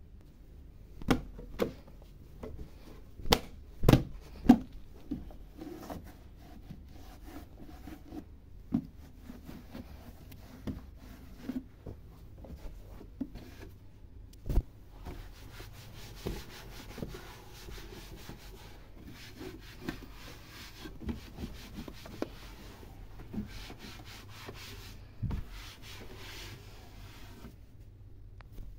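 A cloth wiping and rubbing wooden cabinet shelves during dusting, with a few sharp knocks of things touched or moved on the wood, most of them in the first few seconds. The rubbing turns steadier and hissier from about halfway through until near the end.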